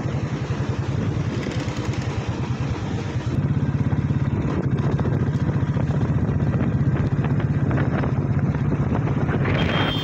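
Motorcycle engine running while riding, with a fast, even exhaust pulse; it gets a little louder about three seconds in.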